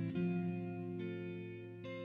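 Guitar music: sustained chords ringing, with a few new notes struck and the sound slowly fading.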